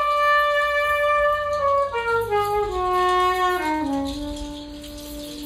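Live free-jazz band playing: a single sustained lead line steps slowly downward through held notes, some sliding between pitches, and the last low note fades near the end.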